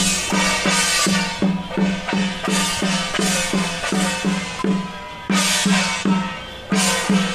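Procession percussion music: a drum beating steadily, about three strokes a second, with a few loud crashes layered over it.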